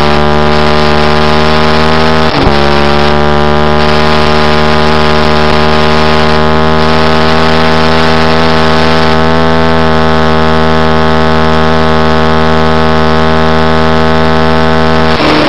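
Middleweight supersport motorcycle engine held flat out at a steady high pitch, with heavy wind rush, on the banking at over 160 mph. The note dips briefly about two seconds in, and near the end the pitch falls.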